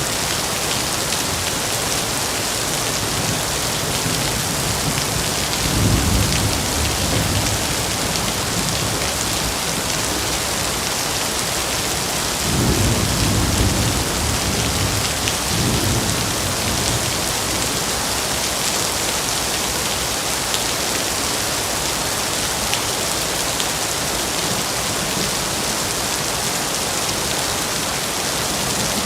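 Steady heavy rain falling on foliage, with low rolls of thunder twice: a short one about six seconds in and a longer one about halfway through.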